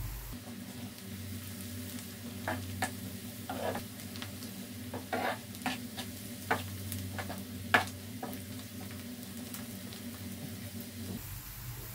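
Chopped onions and spices sizzling in oil in a frying pan while a metal spoon stirs them, scraping and clinking against the pan at irregular moments; the sharpest clink comes about two-thirds of the way through.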